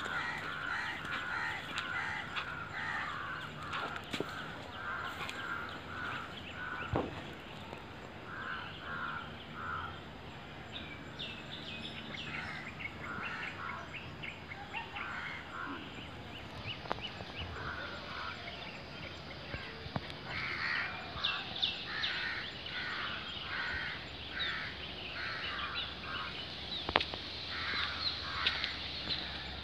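Birds calling in runs of short repeated notes, with a few sharp clicks, the loudest near the end.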